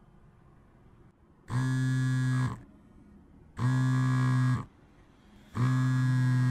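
Mobile phone buzzing on vibrate, three even one-second buzzes about two seconds apart, waking a sleeper.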